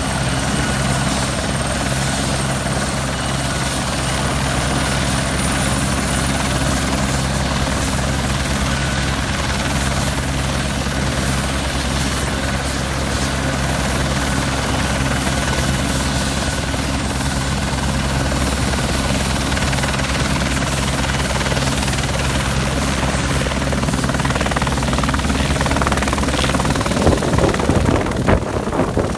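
Airbus AS355 F1 twin-turbine helicopter running, a steady rotor beat under a high turbine whine. In the last few seconds the whine rises and the rotor sound grows rougher as power comes up for take-off.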